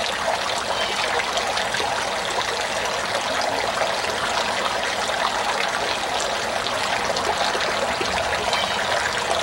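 Steady trickle of running water from a garden fountain.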